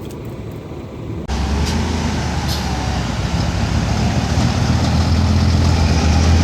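Heavy truck engine running with a deep, steady rumble that grows slowly louder. It comes in abruptly about a second in, replacing quieter road noise.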